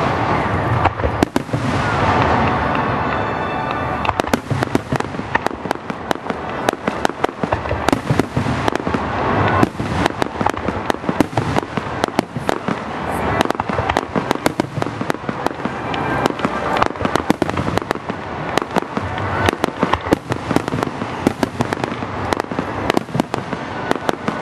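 Aerial fireworks shells bursting overhead at a display, one sharp bang after another in quick succession.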